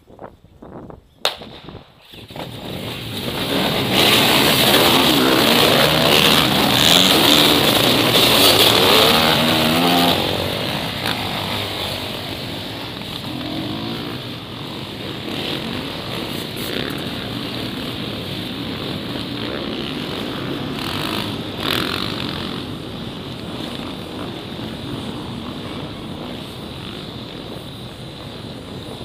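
A large field of off-road motorcycles launching together at a race start. A sharp snap comes about a second in, then the massed engines rise to a loud revving din for several seconds as the pack pulls away. The din then settles to a steady, quieter drone.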